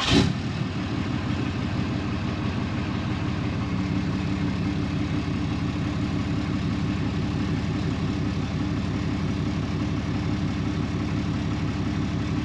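2017 Ram 2500 pickup engine catching after being started, flaring briefly, then settling into a steady idle.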